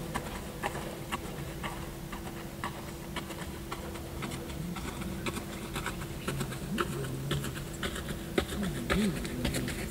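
A Lusitano stallion's hooves stepping at a walk on packed dirt and gravel, a run of short footfalls that grows louder near the end as the horse comes closer, over a steady faint hum.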